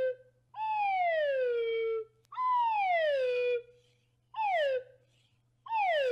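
Falling-whistle sound effect played four times, each a pitched whistle gliding steadily downward. The first two falls last over a second each; the last two are short.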